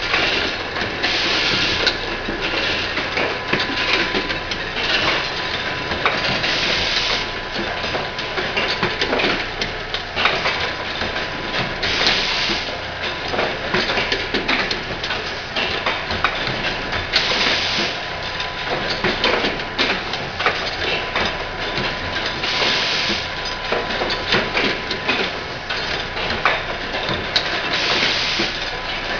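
Automatic insulin syringe assembly machine running: a steady clatter of small metal clicks and knocks from its grippers and slides. A short hiss of compressed air, from its pneumatic cylinders exhausting, comes about every five seconds, over a faint steady whine.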